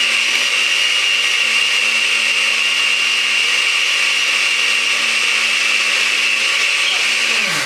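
Countertop jug blender running steadily at a constant pitch, blending banana and warm milk. Near the end it is switched off and the motor winds down, falling in pitch.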